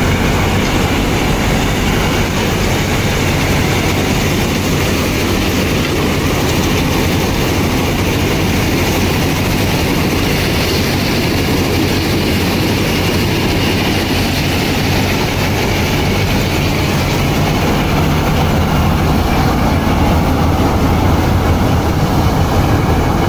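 Panesar combine harvester running steadily in a paddy field: a constant low engine drone under a dense, even rattle of its cutting and threshing machinery.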